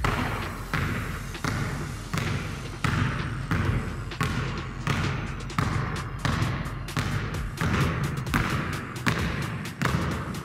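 Two basketballs dribbled at once on a wooden gym floor, the bounces thudding in a steady, even rhythm with a strong bounce about every 0.7 seconds.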